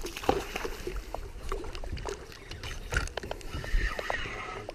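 Water lapping against a small boat's hull, with scattered light clicks as a spinning reel is cranked to reel in a fish.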